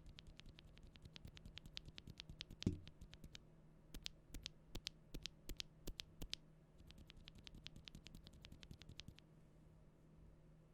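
Typing on a mechanical keyboard fitted with Akko linear switches: a fast run of keystrokes with one heavier thump about two and a half seconds in, then about eight slower, separate key presses, then another quick run that stops about nine seconds in.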